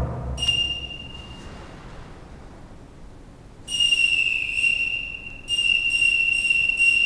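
A whistle blown in three steady, high-pitched blasts: a short one about half a second in, then two long ones back to back from about halfway to the end.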